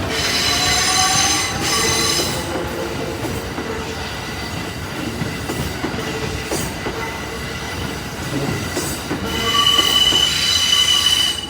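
Kintetsu train wheels running past, squealing: a high steady squeal in the first couple of seconds and again, louder, near the end, with rumbling and knocking over the rails in between. This is flange squeal, typical of a train taking a tight curve.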